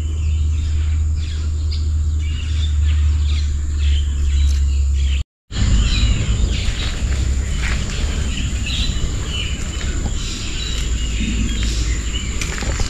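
Outdoor rural ambience: birds chirping and a steady high insect drone over a constant low rumble. The sound drops out briefly about five seconds in.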